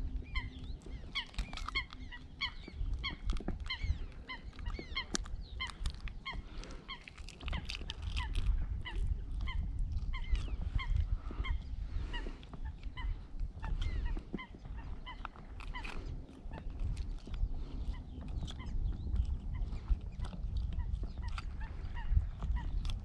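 Many short, honk-like bird calls repeated over and over, several a second at times, over a low rumble of wind on the microphone.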